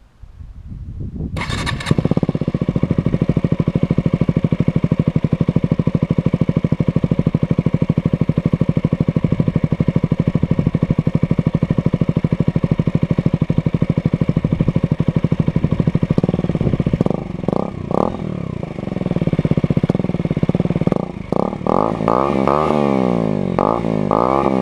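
KTM 125 motorcycle with an IXRace MK2 aftermarket exhaust starting about a second in and settling into a steady idle, then blipped through a series of quick revs, each rising and falling, over the last several seconds.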